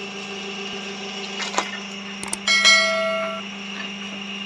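Click sound effects from a subscribe-button animation, followed by a bright bell-like notification chime that rings for about a second, over a steady low hum.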